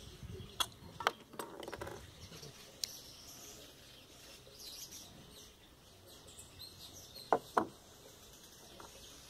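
Light clicks of pump parts being handled in the first two seconds, then two sharp knocks near the end as the parts are set down on a wooden table. Birds chirp in the background throughout.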